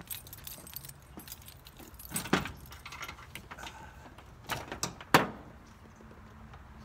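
Metal clinking and jangling from loose metal parts being handled, with two sharp knocks about two and five seconds in.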